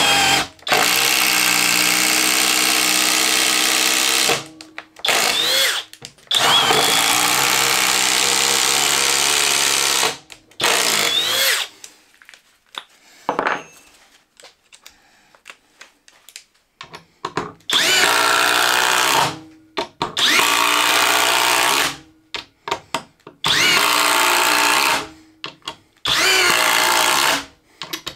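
Flex 24V brushless 3-speed impact driver hammering long screws into stacked OSB in a series of runs, one per fastener. The runs last from under a second to about four seconds, with short pauses between them and a longer lull around the middle.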